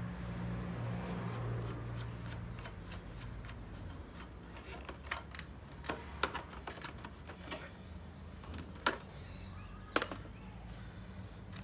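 Scattered sharp clicks and taps from a hand working on the plastic top of a Briggs & Stratton lawn mower engine, over a faint low hum that fades within the first few seconds.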